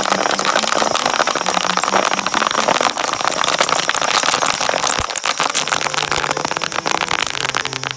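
Bubble wrap being torn up by the rotating cutters of a twin-shaft shredder: a dense, continuous crackle of bubbles bursting.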